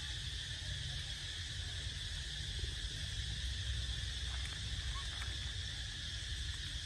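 Steady, unbroken high drone of insects calling, over a low rumble, with a couple of faint ticks.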